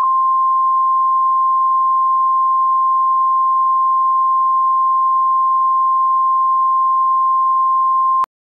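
Weather-radio warning alarm tone: a single steady, high pure tone held for about eight seconds, then cut off abruptly. It is the attention signal that comes before a severe thunderstorm warning message.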